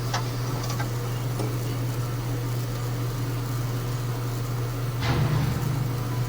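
Steady low machine hum in a tractor cab, with a brief rustle and knock about five seconds in.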